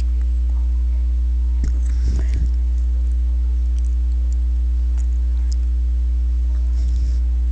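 Steady low electrical hum with fainter higher tones over it, the constant background noise of a computer microphone recording, with a few faint short sounds about two seconds in.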